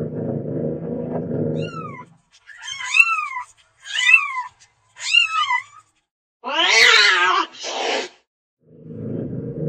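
Domestic cat vocalising: a low steady rumble, then three short meows that rise and fall in pitch, then one louder, drawn-out wavering yowl. The low rumble comes back near the end.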